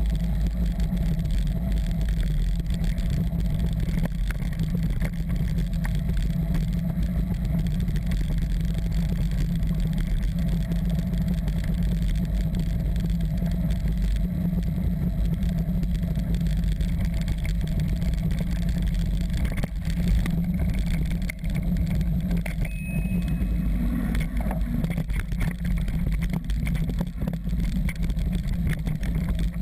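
Steady low rumble of wind buffeting the mic and tyres rolling on a dirt and gravel track, picked up by an action camera on a moving mountain bike, with a few knocks from bumps about two-thirds of the way through.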